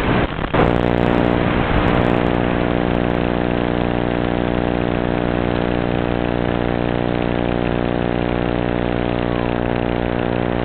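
A steady buzz with many evenly spaced overtones, heard as the harsh onboard audio of a small FPV camera. It dips briefly just after the start, then holds the same pitch and level with no rise or fall.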